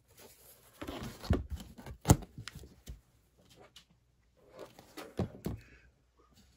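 Handling noise on a tabletop as a craft sign board and wired ribbon are set down and arranged: rustling with scattered knocks and clicks, the sharpest about two seconds in, and another cluster of clicks about five seconds in.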